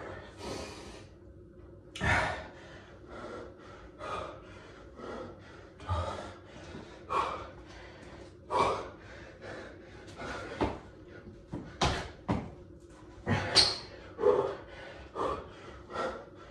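A man breathing hard from exertion, with sharp, noisy exhales and gasps about once a second, along with a few dull thumps of hands and feet landing on a tiled floor during burpees and squats.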